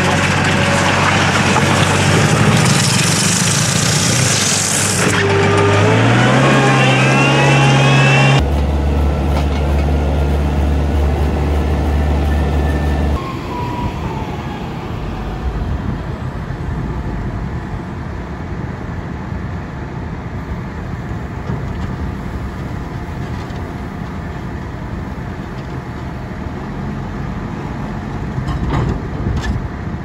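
Diesel engines of farm loaders at work. A loader pushing a scraper runs loud and rises in pitch about six seconds in; after an abrupt change it runs at a steady drone, and from about 13 seconds a JCB telescopic wheel loader runs more quietly at a silage clamp.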